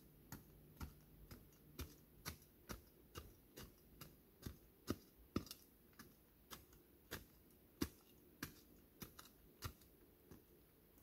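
Faint, sharp clicks about two a second as soil is worked and broken up by hand in a shallow hole in not-yet-frozen ground.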